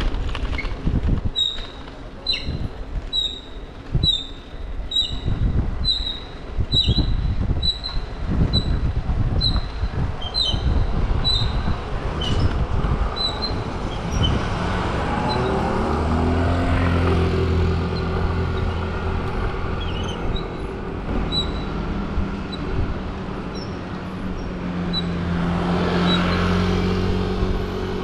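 A bicycle being ridden, with a short high squeak repeating about one and a half times a second and a bumpy rumble. From about halfway a motor vehicle's engine hum takes over and swells near the end.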